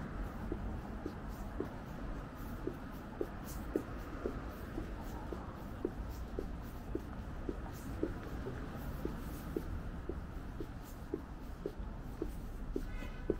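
Footsteps at a steady walking pace, about two steps a second, over a low background hum. A brief high tone sounds near the end.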